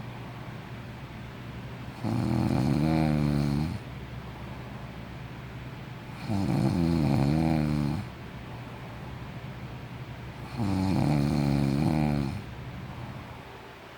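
A sleeping man snoring: three long, pitched snores about four seconds apart, with quieter breathing between them.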